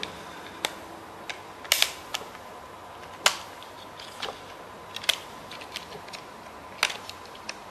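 Zoom H4 handheld recorder being handled for a battery change: a handful of short sharp plastic clicks and taps, irregularly spaced, as its casing and battery cover are worked.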